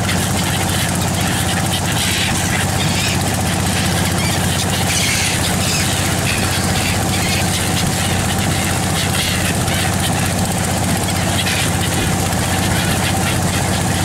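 An engine running steadily with a constant low drone.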